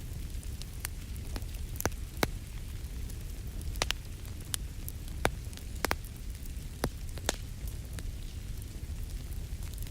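Wood fire crackling in a fireplace: irregular sharp pops and snaps, a dozen or so, over a low steady rumble of the flames.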